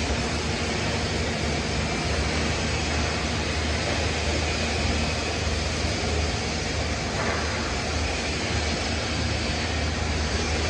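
Pipe welding on a preheated steel pipe: a steady, even hiss over a low electrical hum, with no breaks.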